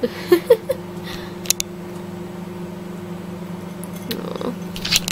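A cat gives a few short mews in the first second, then a couple of sharp clicks, over the steady hum of a microwave oven running.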